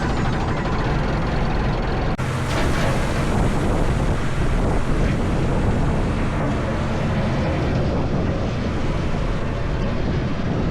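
Old Case 431 tractor engine running steadily, with wind buffeting the microphone. There is a momentary break in the sound about two seconds in.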